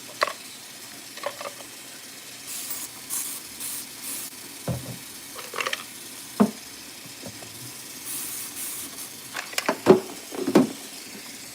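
Spray bottle of dish cleaner squirted in quick runs of short hissing bursts, a handful a few seconds in and a few more later. Dishes knock and clink in the sink between them, loudest near the end.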